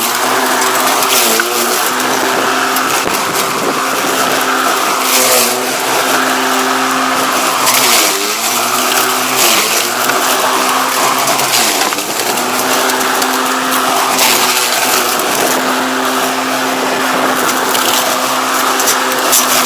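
Redback cordless battery lawnmower running, its motor and blade giving a steady whine that sags briefly in pitch several times as it bogs under load while cutting, with a rough crackle of material being cut.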